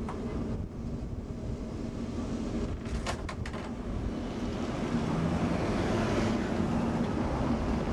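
Street tram running along its track: a steady low rumble of wheels and motor, with three or four sharp clicks about three seconds in, getting louder in the second half.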